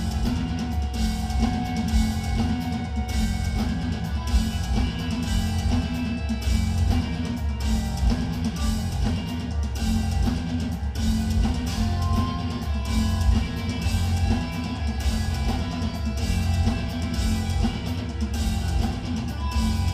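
Metal band playing live: heavily distorted low-tuned guitars and bass with fast, dense kick drum and cymbals, an instrumental stretch without vocals.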